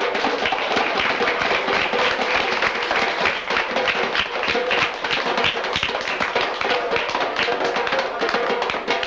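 Two metal goblet drums (darbukas) played by hand: a fast, unbroken run of slaps and taps.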